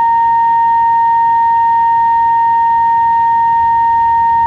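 A steady, unbroken high-pitched test tone with a fainter overtone, reproduced by a Curtis Mathes tube tuner's FM stereo multiplex section from an alignment test signal while its multiplex coils are being tuned.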